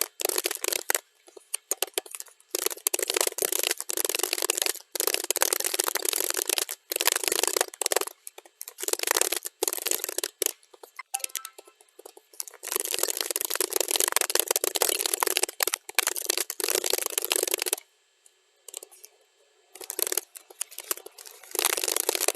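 Computer keyboard typing, sped up to double speed: fast, dense runs of key clicks broken by a few short pauses, the longest near the end.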